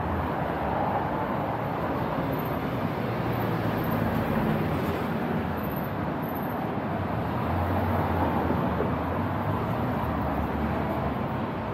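Street traffic on a busy city road: a steady hum of vehicles passing, with low engine rumble swelling twice, a few seconds in and again about two-thirds of the way through.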